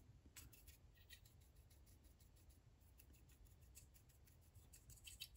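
Near silence, with faint, scattered scratches of a small paintbrush dabbing weathering powder onto a plastic model tank car.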